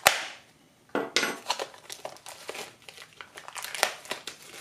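Clear plastic packaging crinkling and tearing as it is pulled off an LED recessed light fixture, in an irregular run of crackles from about a second in. It opens with one sharp, loud snap.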